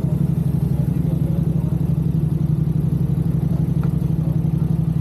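Yamaha R6's inline-four engine running steadily at low revs, an even fast pulsing with no revving.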